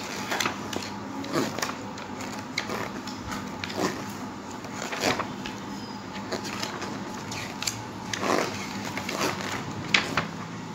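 Pages of a children's encyclopedia being turned by hand: a string of short paper rustles and flicks at irregular intervals, a few louder ones about five and eight seconds in.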